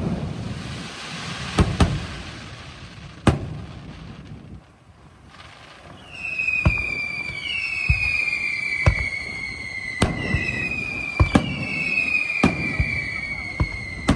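Fireworks display: aerial shells bursting with sharp bangs, a loud one at the start and more every second or so. From about six seconds in, several falling whistles overlap one another between the bangs.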